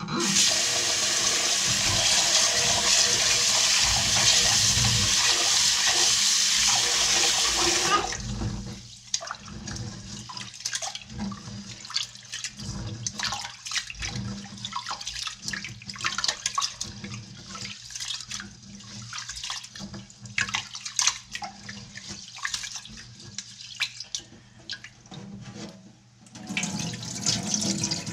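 Tap water running hard into a vessel for about eight seconds, then shut off. Irregular swishing, sloshing and small clicks follow, as of rice being washed by hand in water. Near the end the tap runs again.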